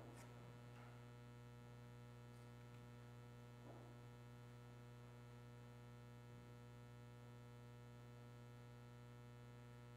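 Near silence with a steady low electrical mains hum in the recording, and two faint brief noises about one and four seconds in.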